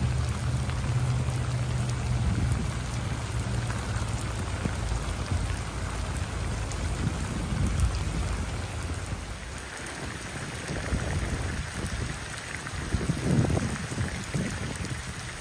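Heavy rain falling on a flooded street: a steady hiss of drops pattering on standing water and wet pavement. A low steady hum runs under it for the first few seconds.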